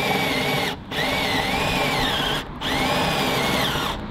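Cordless drill boring down through a thick oak door, its whine dipping and rising as the bit loads up. It stops briefly three times and starts again.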